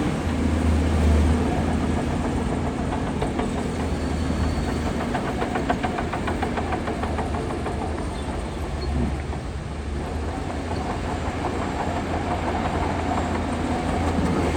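Heavy diesel earthmoving machinery running steadily, with a low engine drone throughout. Through the middle comes a run of fast, regular clicks.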